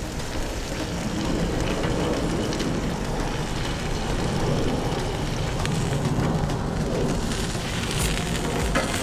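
Ribeye steak sizzling in oil on a Blackstone flat-top griddle's steel cooktop, a steady hiss as its edges are held down and turned with two metal spatulas. There are a couple of short spatula clicks near the end.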